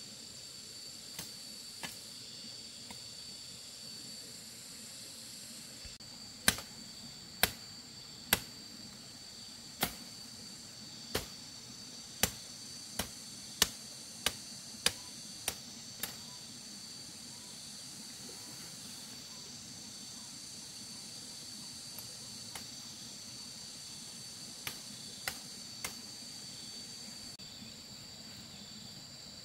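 Insects trilling steadily, with a blade chopping at wood in a run of sharp strikes about a second apart, then a few more, lighter strikes near the end.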